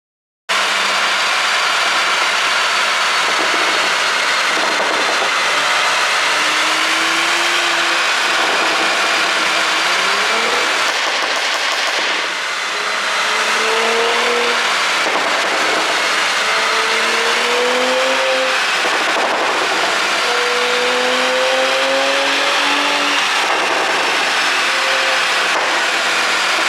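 Porsche Cayenne Coupe's turbocharged 3.0-litre V6 and exhaust running loud, its pitch rising and falling again and again as it is revved, on an ECU tune made for exhaust pops. It starts abruptly about half a second in and dips briefly around the middle.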